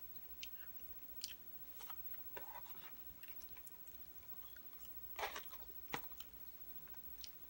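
A person chewing a mouthful of food close to the microphone: soft, scattered wet mouth clicks and smacks, with two louder smacks about five and six seconds in.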